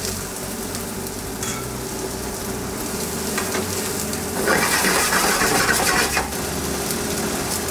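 Onions and vegetables sizzling in a hot frying pan on a gas stove, stirred and turned with a metal utensil; the sizzle swells louder about four and a half seconds in, then settles.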